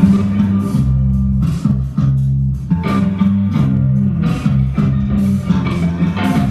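Instrumental rock played on electric guitar and electric bass, with steady low bass notes under the guitar and percussion hits throughout.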